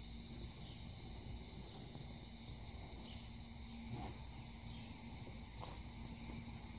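Steady high-pitched insect buzz in the grass, with a faint low hum under it. A few faint clicks about four and six seconds in come from hand work on the mower deck.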